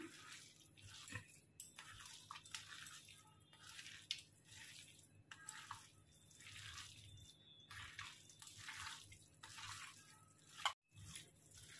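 Faint wet squelching of a hand kneading and squeezing raw mutton mince with yogurt and spices in a steel bowl, in repeated short strokes. A single sharp tap sounds near the end.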